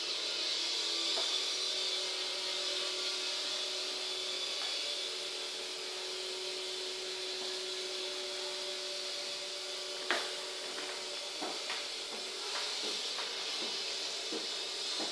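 Steady hiss with a faint steady hum, broken by a sharp click about ten seconds in and a few lighter clicks after it.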